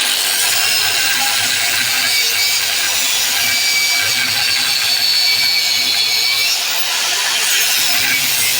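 A power tool running steadily against the rusted metal of an EGR bypass valve, a loud continuous grinding hiss that dips briefly near the end.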